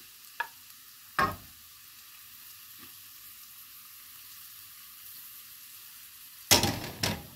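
Chopped red onion and garlic sizzling faintly in hot oil in a metal wok, a steady hiss. A wooden spoon knocks against the wok twice early on and clatters louder against it near the end.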